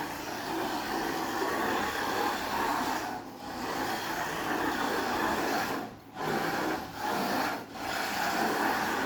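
A small WLtoys 1/28-scale RC drift car running, its electric motor and drivetrain whirring as its hard 3D-printed TPU tyres rub and slide across a wooden floor. The sound drops away briefly four times, about a second apart, in the second half.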